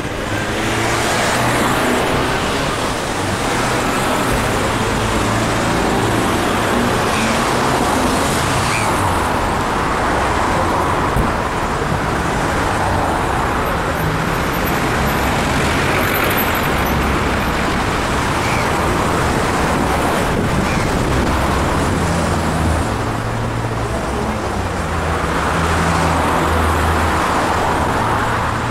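City street traffic: cars and a minibus driving past on a multi-lane road, their engines and tyres swelling and fading as each one passes, over a steady background of traffic.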